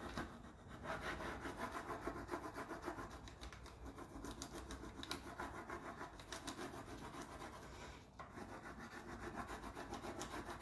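Fingers rubbing the backing sheet of a rub-on transfer against the side of a painted hat box, a steady papery scratching. The rubbing presses the design down until the backing lightens, the sign that the transfer is releasing onto the box.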